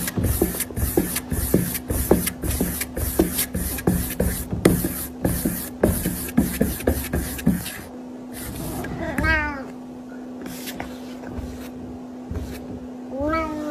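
A cat meowing twice, once about nine seconds in and again near the end. Before the meows comes a run of quick sharp clicking or scratching strokes, about three a second, over a steady low hum.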